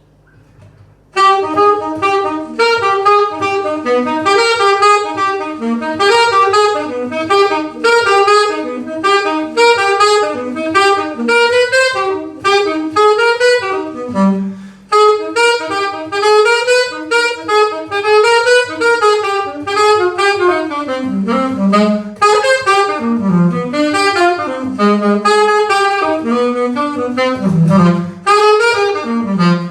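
Saxophone playing fast, running jazz lines, coming in about a second in, with a brief break about halfway, over a faint steady low hum.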